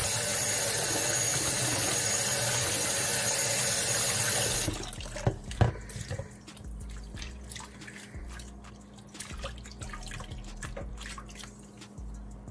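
A kitchen tap running into a glass bowl of shrimp in a stainless-steel sink while hands swish them. About four and a half seconds in the running water stops sharply, with a couple of sharp knocks just after. Then comes quieter splashing and sloshing as the hands keep washing the shrimp in the bowl.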